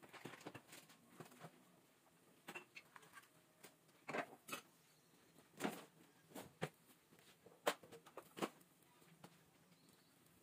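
Oil spitting and crackling in a covered frying pan as potato fries, with scattered sharp pops coming irregularly, one or two a second, over a faint sizzle.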